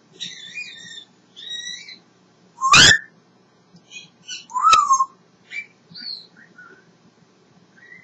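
African grey parrot whistling and chirping in a string of short notes, with two loud, sharp calls about three and five seconds in, the first the loudest.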